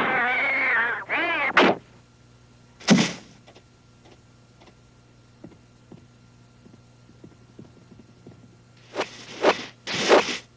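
Cartoon sound effects for a spotted big cat's attack. A wavering snarling yowl ends about a second in and is followed by a short second cry. A heavy thud comes about three seconds in, then faint light taps, then two fast whooshes near the end.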